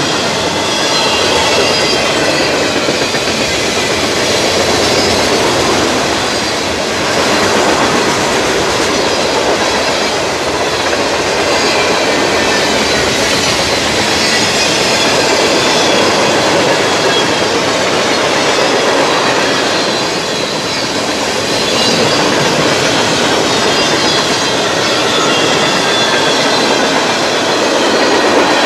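Freight train cars (covered hoppers and tank cars) rolling past close by: a steady loud rumble and clatter of steel wheels on rail, with a faint high wheel squeal wavering through it.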